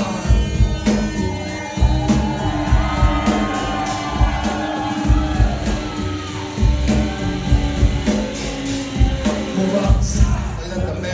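Rock band playing live: a loud groove of bass and drums, with a voice singing a melodic line over it.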